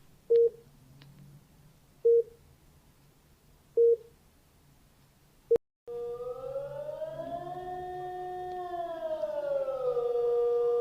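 Emergency alert tones: three short, loud beeps about 1.7 seconds apart. About six seconds in, a siren tone begins that slowly rises in pitch, holds, and falls back to a steady tone, sounding the warning that follows the attack announcement.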